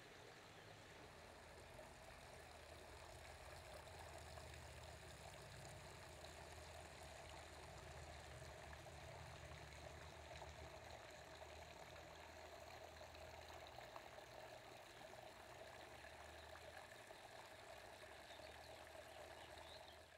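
Faint, steady splashing of a small garden fountain, with a low rumble underneath.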